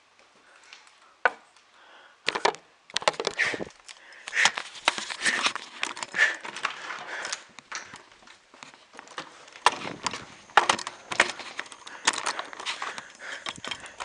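Handling noise from a camera being carried about: a dense string of knocks, clicks and rustling, starting about two seconds in after a single click, with the loudest knocks near the end.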